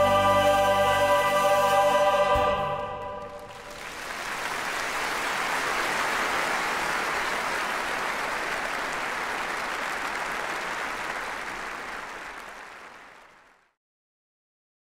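A choir with instrumental accompaniment holds a final chord that ends about three seconds in. A large audience then applauds, and the applause fades out near the end.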